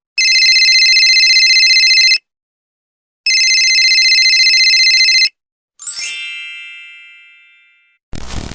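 A telephone-style ring sounds twice, each ring lasting about two seconds with a fast trill, a second apart. A single bright ding follows and fades out over about two seconds, and a brief noisy hit comes at the very end.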